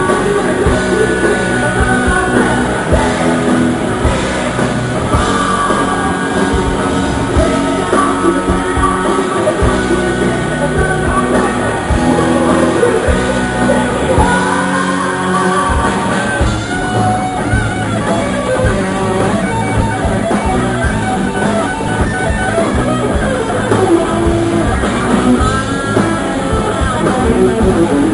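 Live metal band playing loud: electric guitars over a drum kit.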